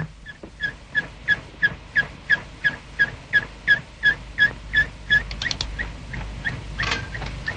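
Window air conditioner squeaking in a steady rhythm, about three short squeaks a second, each dipping slightly in pitch; the unit is overdue for oiling. About five seconds in the squeaking stops with a few quick clicks as its control knob is worked, and a short noisy rattle follows near the end.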